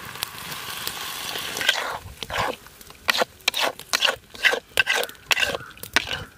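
Water poured into a hot iron wok, hissing for about two seconds. Then a ladle scrapes against the wok in quick short strokes, about two or three a second, as the banana flower curry is stirred.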